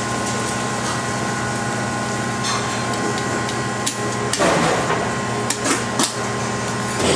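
A large knife cutting through a bigeye tuna: a rasping stroke about four seconds in, then a few sharp knocks, over a steady hum of kitchen machinery.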